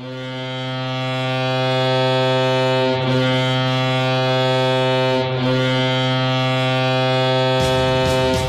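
Hockey arena goal horn sounding one long, steady, low note that swells in over the first couple of seconds. A low rumbling noise joins it near the end.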